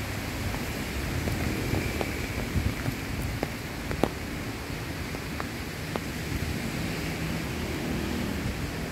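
Strong storm wind blowing through the crowns of large trees, a steady rush of rustling leaves with scattered sharp ticks.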